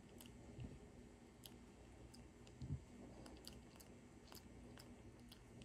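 Faint, irregular small clicks from a macaque grooming a person's hair. A dull low thump about half a second in, and a louder one at about two and a half seconds.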